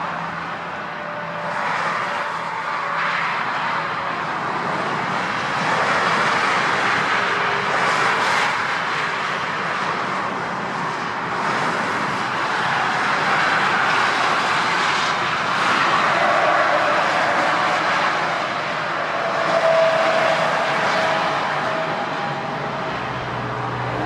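Antonov An-22's four Kuznetsov NK-12 turboprops with contra-rotating propellers running steadily as the aircraft touches down and rolls out along the runway.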